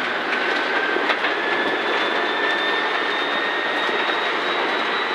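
Rally car at full throttle, heard from inside the cabin: the engine held flat out with no lift, a thin whine slowly rising in pitch as speed builds, over a steady wash of tyre and road noise.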